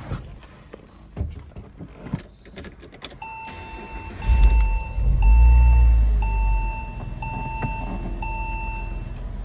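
A few clicks of the key at the ignition, then an electronic chime beeping about once a second. About four seconds in, the 1997 Porsche Boxster's flat-six starts from cold, runs loud at a high cold-start idle, and drops to a steady lower idle about seven seconds in.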